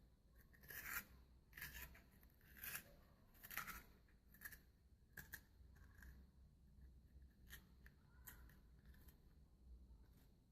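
Spoon scraping and gouging the hard flesh of a black radish to hollow it out: a run of faint short scrapes about once a second, growing sparser and fainter after about five seconds.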